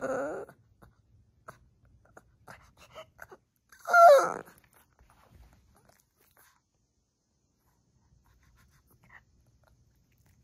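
A Shih Tzu's rough, pulsing whine-growl trails off in the first half-second. About four seconds in comes one short, loud vocal yip from the dog, followed by a few faint mouth clicks.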